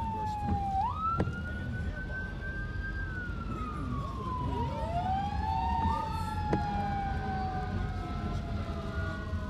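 Emergency vehicle sirens wailing in slow falling and rising sweeps, a second siren overlapping the first about halfway through. Underneath is steady tyre and road noise from a car on a wet freeway, heard from inside the car.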